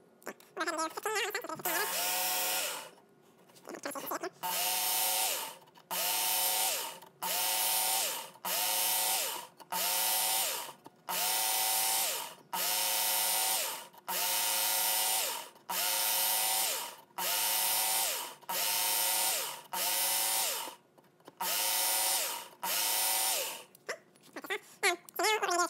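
Work Sharp Ken Onion Edition electric belt sharpener switched on in over a dozen short runs about a second apart, each pitch dipping as it starts, for pulls of a D2 steel knife blade across the abrasive belt to grind the edge bevel.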